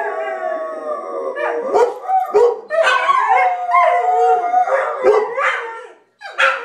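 A dog howling, set off by the doorbell: a long howl sliding down in pitch, a few short barks about two seconds in, then a second long howl and a couple more short barks near the end.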